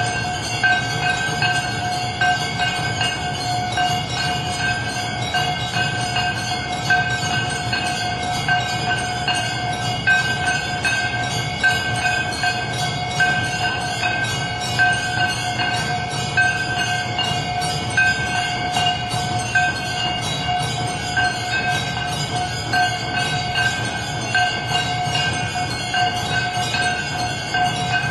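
Temple bells ringing continuously during an aarti, making a dense, steady clangour with a pulse about once a second.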